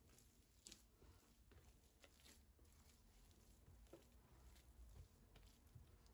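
Near silence, with faint scattered soft taps and clicks over a low room hum.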